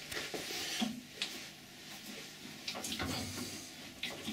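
Scattered light knocks and clicks of metal tooling being handled at a metal lathe, with the chuck at rest.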